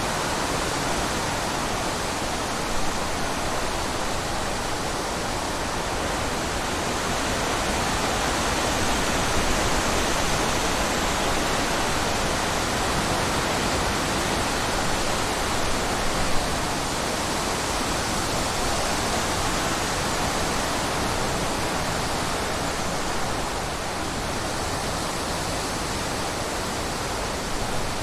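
Steady, even rushing of falling water, a constant hiss with no change or rhythm.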